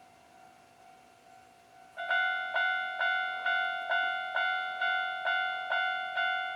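Japanese railway level crossing's electronic warning bell starts ringing about two seconds in, an even ding a little over twice a second, each ring fading before the next. The bell warns that a train is approaching.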